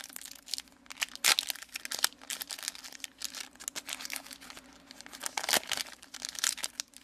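Trading card booster pack wrapper being torn open and crinkled in the hands, an irregular run of crackling and tearing.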